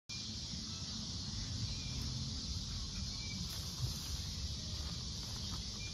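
Outdoor ambience: a steady high-pitched insect drone, like crickets or cicadas, over a low rumble.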